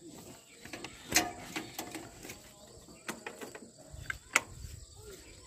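A few sharp clicks and light knocks from a parked tractor's controls with the engine off, the loudest about a second in, as the ignition is switched on. A faint, steady high-pitched insect whine runs underneath.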